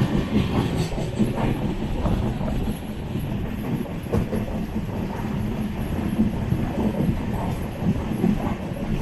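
Sleeper-class passenger coach of an Indian Railways express train running along the track: a steady low rumble of wheels on rail with scattered clicks and knocks over rail joints.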